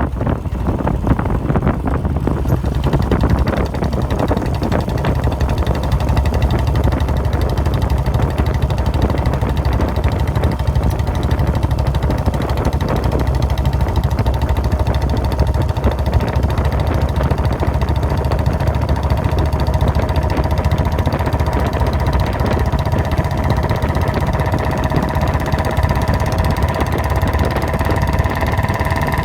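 Royal Enfield Bullet Standard 350's air-cooled single-cylinder engine running steadily, its exhaust giving a deep, heavy thump.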